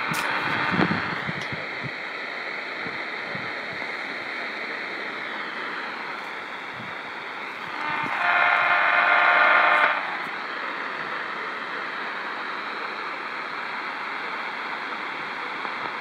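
Tecsun PL-600 portable receiver tuned to 252 kHz longwave, its speaker giving steady radio static and hiss, with a few clicks in the first second or so. About eight seconds in, a loud steady buzzing tone with many overtones sounds for about two seconds, then the static carries on.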